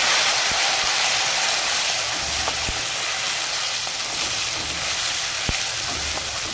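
Chopped tomatoes sizzling in hot mustard oil in a metal kadhai as they are stirred with a wooden spatula, a steady hiss with a few light knocks of the spatula against the pan.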